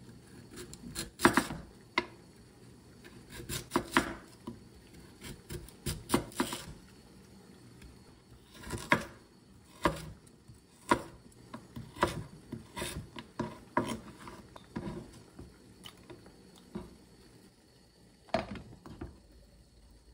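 Kitchen knife slicing a firm vegetable into strips on a wooden cutting board: a series of sharp chops at an uneven pace, each one the blade going through and knocking the wood, with short pauses between them.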